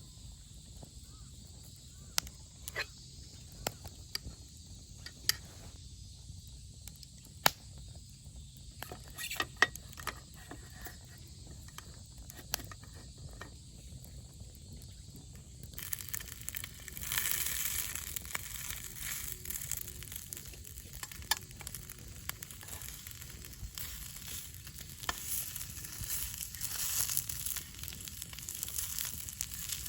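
Scattered light clicks and taps, then about halfway through a steady sizzling of food cooking over heat begins, with small crackles in it.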